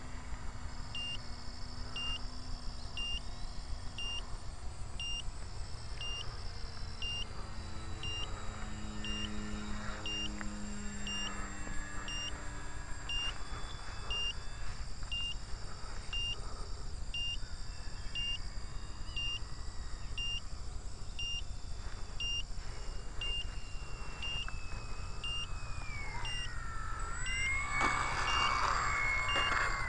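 Regular electronic beeping, about one beep a second, over the faint sound of an 800mm P-40 radio-control model plane's motor. Near the end the model lands on asphalt with a brief scraping rush, and the motor's whine slides down in pitch as it winds down.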